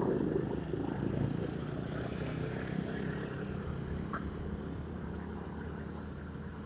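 Honda Scoopy's single-cylinder scooter engine running steadily on the move, with a louder surge of engine and road noise right at the start and a brief sharp sound about four seconds in.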